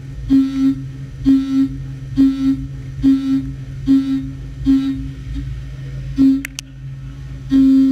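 Haas UMC-750 five-axis mill's end mill cutting the part in repeated Waveform roughing passes: short pitched cutting tones of the same note, each starting with a click, recur a little faster than once a second over a steady machine hum, with a pause near the end.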